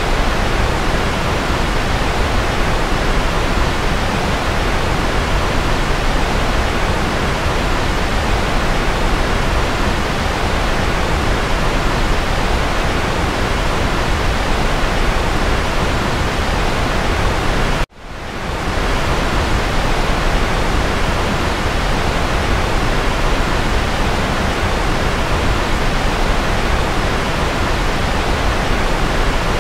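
Steady electronically generated noise for sleep, an even full hiss heavier at the low end, like pink noise. About eighteen seconds in it cuts out for an instant and swells back within about half a second.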